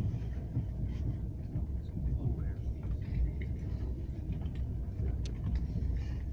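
Passenger train carriage heard from inside while running: a steady low rumble of wheels on the rails, with a few short clicks and rattles, one sharper click about five seconds in.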